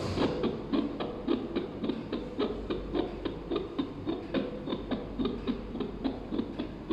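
Fetal heartbeat heard through a Luckcome L6H handheld fetal doppler's speaker: a fast, even rhythm of short whooshing pulses, about four a second.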